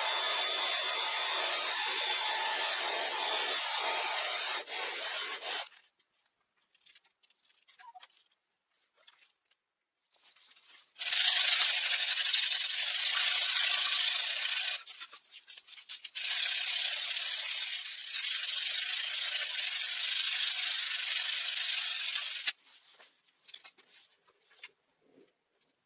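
Steady rush of air from the blower feeding a charcoal forge, stopping suddenly about five seconds in. After a few light clicks, a handheld electric sander with a round disc runs in two stretches of about four and six seconds, sanding the steel knife blank, followed by light handling clicks.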